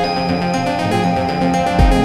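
Loud music playing through a stage sound system, with sustained notes and a single deep bass thump near the end.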